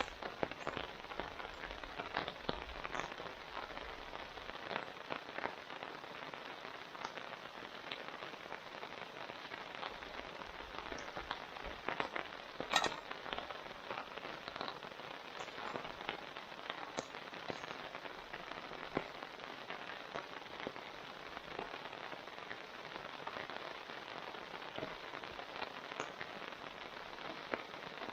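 Steady rain falling, with many small drop ticks and one sharper click about halfway through.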